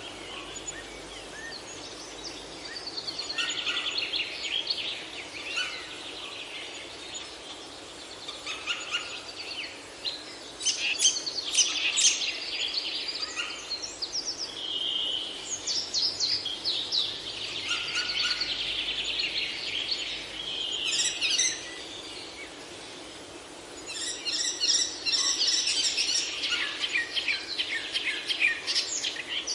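Several songbirds singing and chirping in a busy chorus of quick trills and chirps over a steady low hiss. The chorus is thickest about a third of the way in and again near the end.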